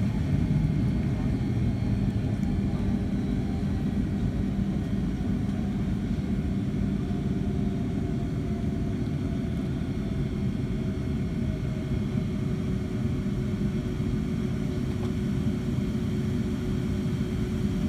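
Cabin noise inside a Boeing 757-200 taxiing after landing: a steady low rumble from the idling turbofan engines and the rolling airframe, with a faint steady hum and a faint tone that slowly falls in pitch.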